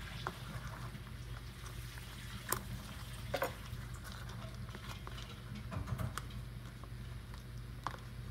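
Sticky glue slime being squished and kneaded by hand in a bowl, with scattered wet clicks and pops. A steady low hum of background noise runs underneath.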